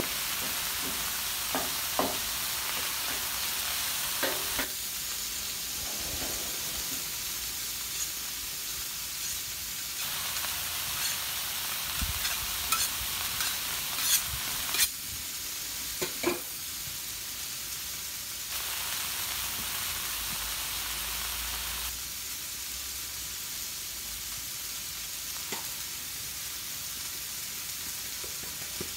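Ground beef sizzling steadily on the steel plate of a Blackstone flat-top griddle, with a metal spatula scraping and tapping against the griddle now and then as the meat is broken up. The scrapes come in a cluster at the start and again around the middle, then thin out.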